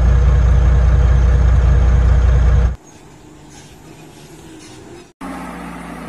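Heavy dump truck engine sounds from spliced clips: a loud, low rumble that cuts off suddenly about three seconds in, a quieter stretch, then a steady engine idling from about five seconds in.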